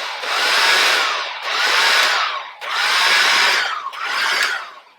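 Black & Decker LSW221 20V cordless hard-surface sweeper (a blower) switched on and off about four times in quick succession, its fan whirring up in pitch and winding down each time. This is the test of the repaired worn power switch, which now turns the sweeper on and off.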